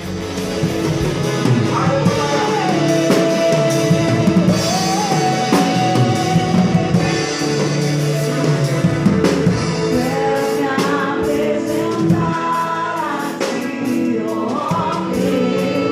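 A live band playing a song with a singer, the drum kit's Mapex Maple 14x8 snare among the instruments. The sound is heard as it is in the room, without close microphones or mixing.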